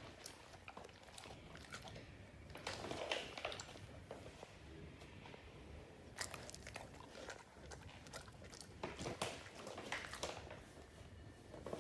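A dog crunching and chewing a hand-fed treat, in three short bouts of crackly bites with pauses between them.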